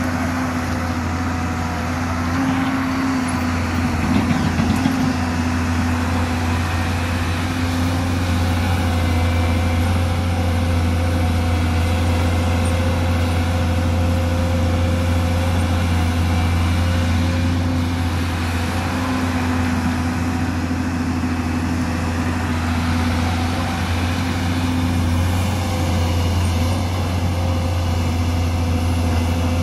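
Hyundai 220-size crawler excavator's diesel engine running steadily while it digs, a continuous low hum. About four seconds in it gets briefly louder with some rough knocking.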